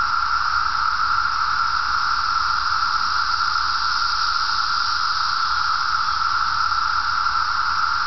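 Chorus of many periodical (17-year) cicadas: a steady, unbroken buzzing drone with no pauses or rises.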